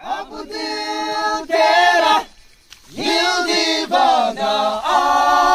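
A group of men singing together without instruments, holding long notes, with a short break about halfway through.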